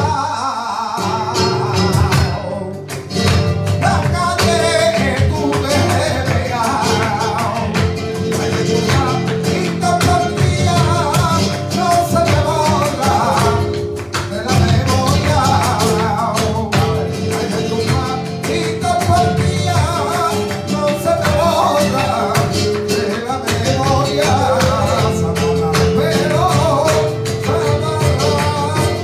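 Live flamenco music: acoustic guitars and a violin playing, with rapid sharp taps of the dancer's percussive footwork.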